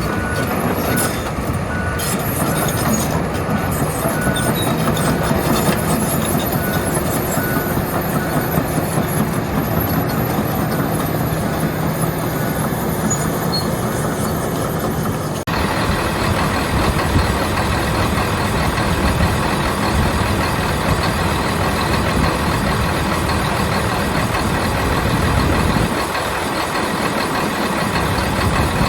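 John Deere 345G LC excavator's Isuzu 6HK1 six-cylinder diesel engine running, with a faint beep repeating steadily through the first half. The sound changes abruptly about halfway through.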